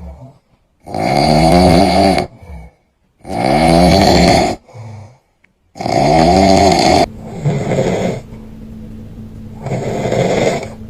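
A man snoring loudly: three long, rasping snores each about a second and a half, evenly spaced, then one quieter snore near the end.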